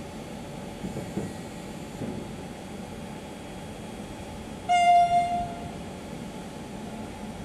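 An approaching train sounds its horn once, a single steady blast of about a second, a little past the middle, over a steady station hiss.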